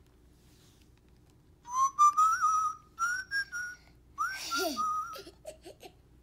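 A children's sound book's electronic speaker playing a short recorded whistled tune, the zookeeper's whistle, in a few short phrases that start about two seconds in.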